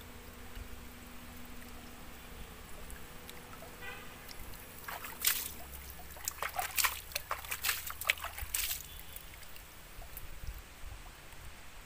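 Low outdoor rumble with a faint steady hum that stops about halfway through. Around the middle comes a few seconds of sharp, irregular clicks and taps.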